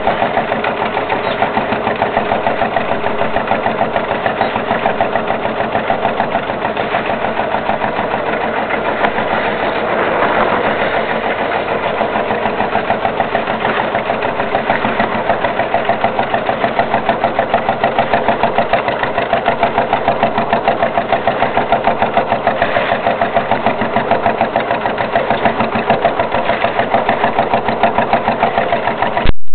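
Sabb G-model single-cylinder 10 hp marine diesel running at low revs, with a steady, even chug of a few beats a second. It grows slightly louder about ten seconds in.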